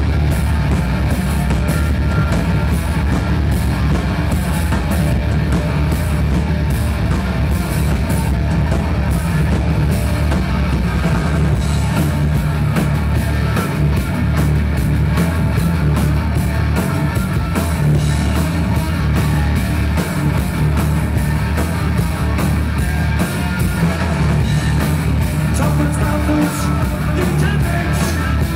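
Rock band playing loud and live: distorted electric guitar, bass, drums and keyboards, driven by a steady drum beat.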